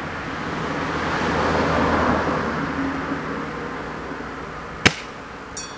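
A road vehicle passes, its noise swelling and fading over about three seconds. About five seconds in comes a single sharp snap, the loudest sound, as the spring-piston airsoft sniper rifle, a Tokyo Marui VSR-10 G-Spec shooting at 465 fps, fires one shot.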